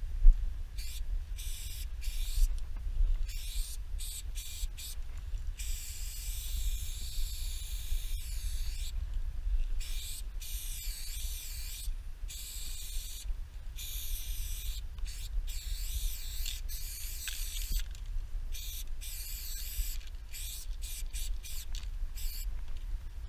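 Aerosol spray paint can hissing in bursts, some short and some held for several seconds, as a piece is outlined on a truck's panel. A steady low rumble runs underneath.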